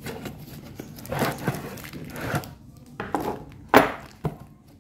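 Cardboard box and plastic wrapping rustling and scraping as a kitchen towel hanger is slid out, then a few sharp knocks as the wooden-rod hanger with its metal brackets is set down on a wooden table, the loudest about three-quarters of the way through.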